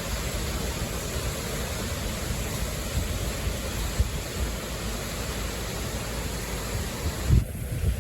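Strong, gusty thunderstorm outflow wind from a gust front, over 60 mph, rushing steadily with irregular low buffeting on the microphone and a harder thump near the end.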